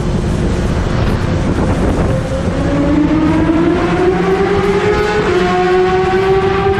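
Sport motorcycle engine under acceleration inside a road tunnel, its pitch climbing steadily from about two seconds in, dipping slightly a little past halfway, then holding high.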